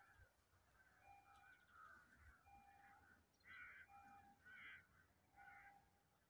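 Faint harsh bird calls, three stronger ones coming in the second half, over near silence with a faint short tone repeating about every second and a half.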